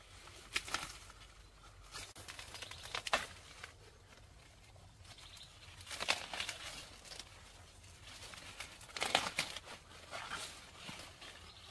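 Corn leaves and husks rustling and crackling in irregular bursts as ears of corn are picked by hand off the stalks, with a few sharp snaps near the start and about three seconds in.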